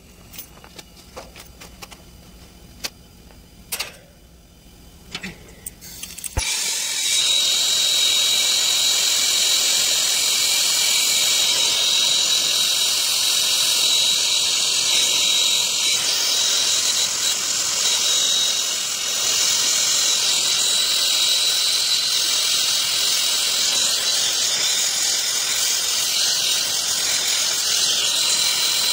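A few light taps, then about six seconds in a loud, steady hiss of nitrogen gas starts suddenly, with a faint whistle in it: a nitrogen purge flowing through a heat pump's copper refrigerant lines to keep them from oxidising during brazing.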